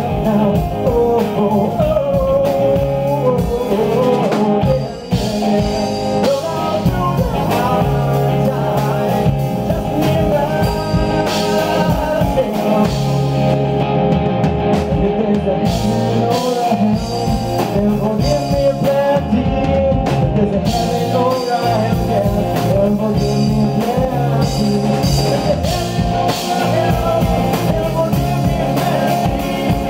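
Live rock band playing: electric guitar, bass guitar and drum kit in a steady groove.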